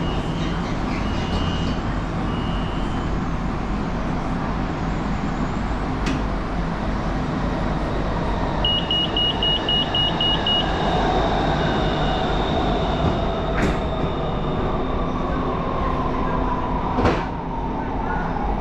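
Elevated electric metro train arriving and braking into the station. Its traction motors give a whine that falls steadily in pitch over the second half, over a steady rumble. About nine seconds in there is a quick run of high electronic beeps, and there are a few sharp clicks.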